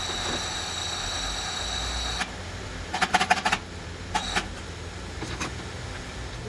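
A steady high-pitched whine that stops with a click about two seconds in, then a quick run of metallic clinks and rattles from the chain of a manual chain hoist being pulled, with two shorter rattles after it, over a low machine-shop rumble.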